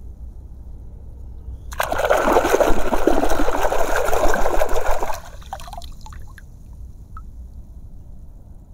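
Hand splashing and swishing in shallow water, rinsing a plastic toy animal. The splashing starts about two seconds in, goes on for about three seconds and stops abruptly.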